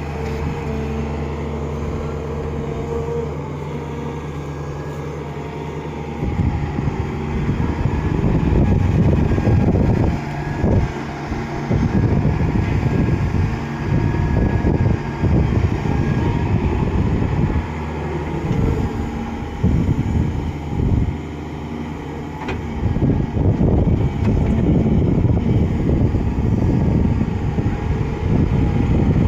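Excavator's diesel engine running steadily at low revs, then revving up about six seconds in and working under load, rising and falling with brief dips as the machine digs and levels.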